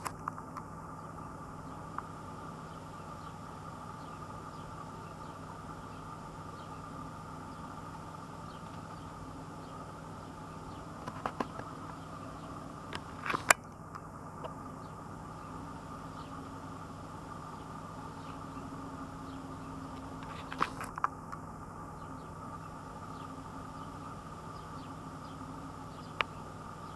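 Steady low hum and hiss of quiet outdoor background, broken by a few sharp clicks, the loudest about halfway through and a pair about two-thirds of the way in.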